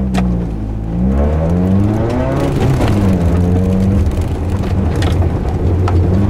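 Small car's engine heard from inside the cabin, revs climbing and falling as it is driven hard around a course: the pitch rises through the first couple of seconds, drops about three seconds in, then holds high. A few sharp knocks cut through.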